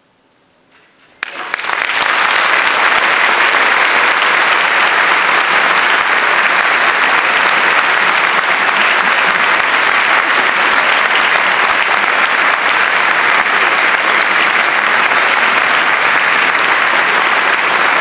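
A brief hush, then audience applause breaks out suddenly about a second in and continues steadily.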